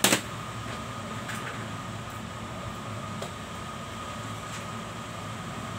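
Steady mechanical hum with a faint high whine, opening with two sharp clicks.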